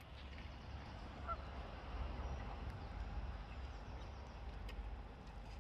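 Geese honking faintly among waterfowl on the water, over a steady low rumble.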